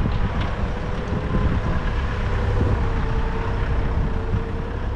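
A vehicle driving along steadily: a continuous engine and tyre rumble with a faint steady whine running through it.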